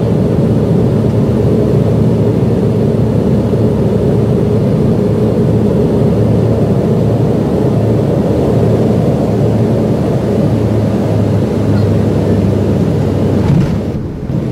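Steady roar of jet airliner cabin noise, engines and rushing air, heard from inside the cabin on final approach with the aircraft low over the ground. The level dips briefly near the end.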